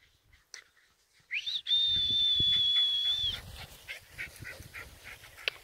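One long high whistle that slides up briefly, then holds a steady pitch for about two seconds and stops: a recall whistle calling dogs in.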